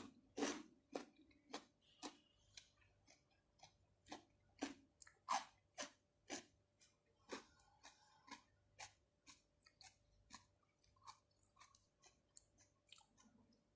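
Chewing of fresh shrimp and octopus: a run of sticky, wet mouth clicks, about two a second, louder in the first half and growing fainter toward the end.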